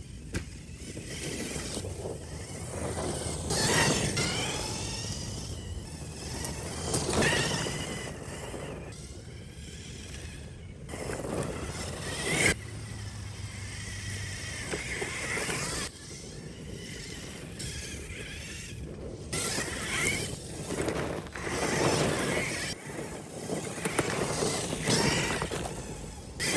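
RC4WD Miller Motorsports Pro Rock Racer, a 1/10-scale RC truck, driven fast: its motor and gearbox whine rises and falls with each burst of throttle. The sound changes abruptly a few times.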